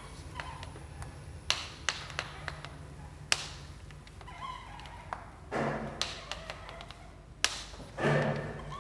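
Maclaren Mark II stroller giving a few sharp, irregular clicks, a second or more apart, with two longer, noisier sounds between them. The clicking is a fault that appeared three weeks after purchase.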